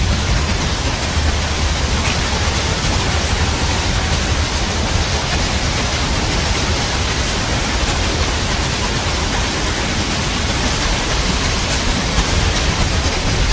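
Steady heavy rain used as sleep noise: a dense, even hiss with a low rumble underneath.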